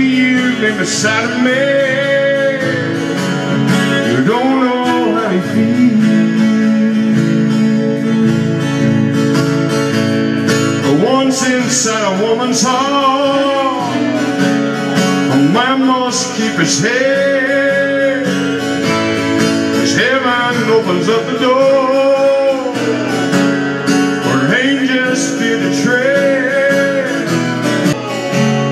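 Two acoustic guitars strummed together while a man sings a country-style melody over them, through microphones.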